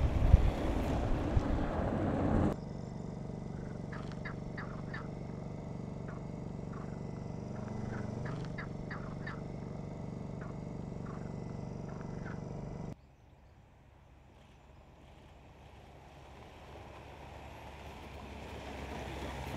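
Seat Ateca SUV driving on a gravel dirt track: a loud rush of tyres and engine for the first two seconds or so, then a steady low engine drone with short bird chirps over it, then after a sudden drop a quieter rushing approach that grows louder near the end.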